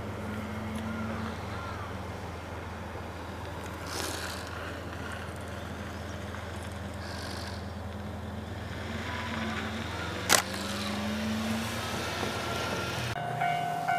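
Steady low rumble of a JR Hokkaido DF200 diesel locomotive's engine running at a distance. A single sharp click comes about ten seconds in, and the rumble drops away near the end.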